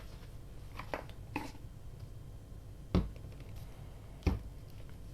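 Hands handling paper pieces at a craft table: a couple of light taps, then two sharper knocks about three and four seconds in.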